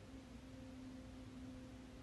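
Faint steady hum: one low tone with a weaker one an octave above it, over a quiet low rumble of background noise.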